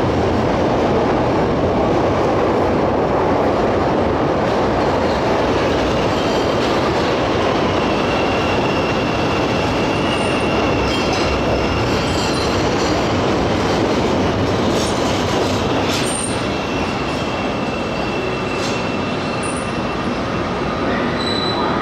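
CTA rapid transit train running on the rails: a steady rumble of wheels on track, with thin high wheel squeals coming and going and a few sharp clicks.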